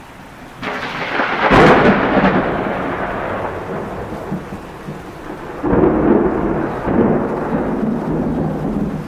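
Thunder over steady rain: a sudden clap about a second and a half in rolls into a long rumble, and a second loud peal of rumbling breaks in near six seconds.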